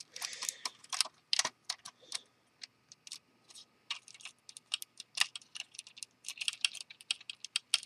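Plastic Lego pieces clicking as fingers handle them and press them onto a brick-built model: a run of sharp, irregular small clicks, some in quick clusters.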